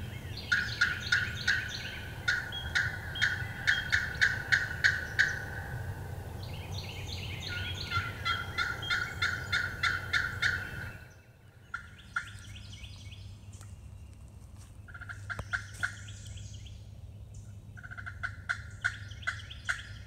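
Hunter's turkey call worked in long, fast series of notes, about three a second, used to make a gobbler answer. The calling breaks off about halfway through and comes back in shorter runs near the end.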